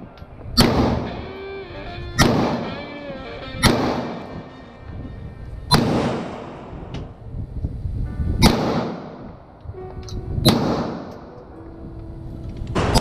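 Gunshots from a firearm fired at a range: seven shots at an uneven pace, one every two seconds or so, each followed by a ringing echo.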